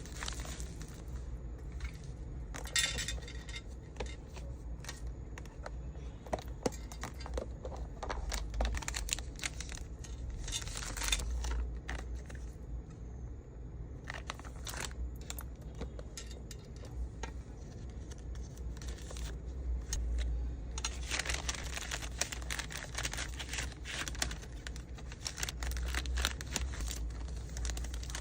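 Packing sounds: small hard plastic or resin items clicking and clattering together while plastic packaging crinkles and rustles. The rustling is heaviest over the last several seconds. A steady low hum runs underneath.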